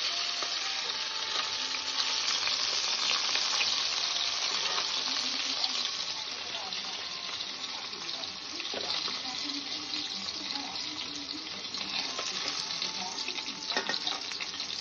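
Semolina-coated catla fish pieces sizzling steadily as they shallow-fry in hot oil in a stainless steel pot. A metal spatula scrapes and clicks against the pot now and then as the pieces are lifted out.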